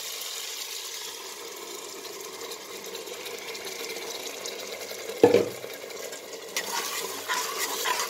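Mutton and masala sizzling in hot oil in a metal pot, with a wet onion-tomato-ginger-garlic paste just added on top. A loud knock about five seconds in, then a spatula scraping in repeated strokes as it is stirred in.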